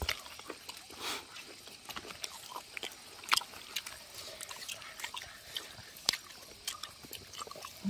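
A kitchen knife cutting through a roast pork leg with crisp skin on a banana leaf: faint, scattered clicks and crackles.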